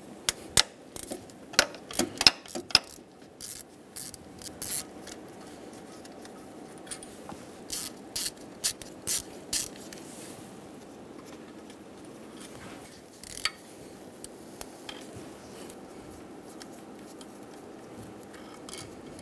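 Ratchet wrench with a 10 mm socket loosening water pump bolts: short bursts of sharp metallic clicking, with quieter stretches between.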